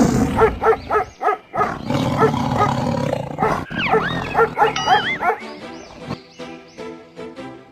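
Background music with animal calls laid over it. About four to five seconds in comes a run of curving, rising-and-falling calls, and the music carries on with steady tones after that.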